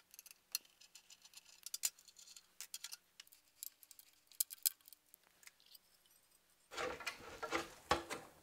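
Faint, scattered small metallic clicks and ticks as a hex key turns screws out of an Anycubic Photon resin printer's case. About seven seconds in, louder rustling and scraping as the printer's inner frame is pulled out of the housing.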